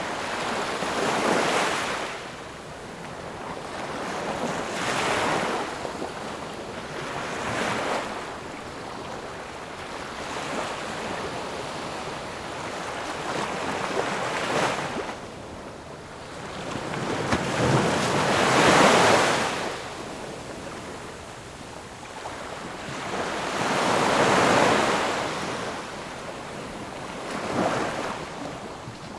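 Ocean waves washing in and out, swelling and fading every few seconds, with the loudest surge about two-thirds of the way through.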